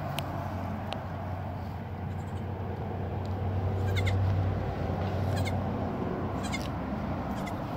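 Nigerian dwarf goat kid bleating, over a steady low hum that swells around the middle.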